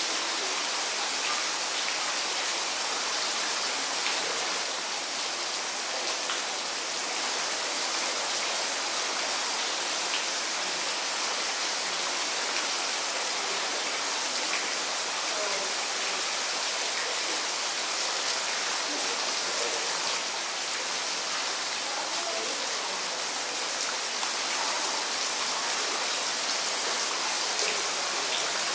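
Steady, unbroken hiss of falling or running water, even throughout with no changes.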